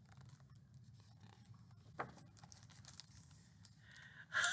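Faint rustling and light taps of a picture book's paper pages being turned and handled. Right at the end a voice breaks into laughter.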